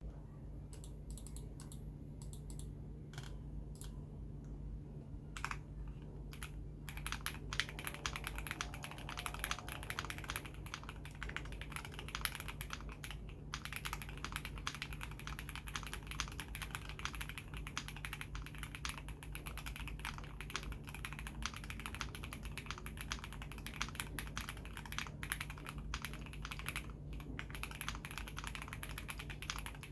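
Typing on an Akko ACR Pro 75 mechanical keyboard with lubed JWK Black linear switches on a polycarbonate plate, gasket-mounted, with GMK WoB clone keycaps and tape and polyfil mods. A few scattered keystrokes at first, then fast continuous typing from about seven seconds in, with a couple of brief pauses.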